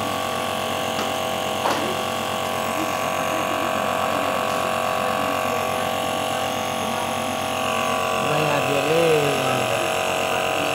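Electric compressor nebulizer running with a steady motor hum.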